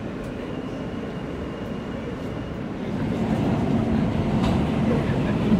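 New York City subway train running, heard from inside the car: a steady low rumble that grows louder about three seconds in.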